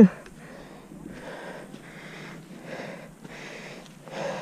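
A mountain biker breathing hard after a nonstop descent, panting in and out close to the microphone roughly once a second. It opens with a short voiced exhale that falls in pitch.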